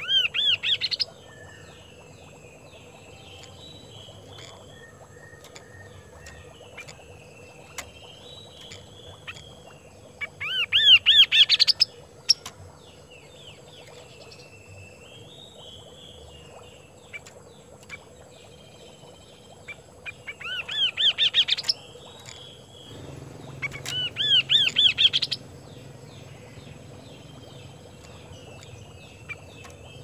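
Chestnut-capped babbler (kaso-kaso) singing in vigorous song: four short, loud bursts of quick repeated rising notes, with softer chirping in the pauses between them.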